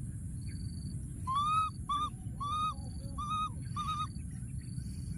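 Baby macaque giving five short, whistle-like coo calls in quick succession, each rising in pitch and then levelling off: contact calls of an infant separated from its companion.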